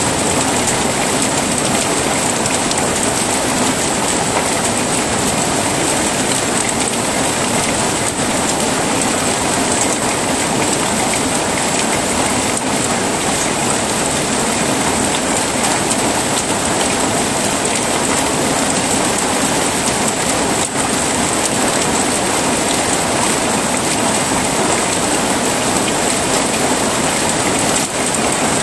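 Heavy rain falling steadily: a dense, even hiss with no break and no thunder.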